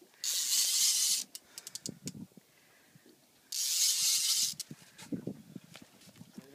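A fishing reel's drag gives line in two bursts about a second long, roughly three seconds apart, with a few light clicks after the first: a hooked sturgeon is pulling line against the drag.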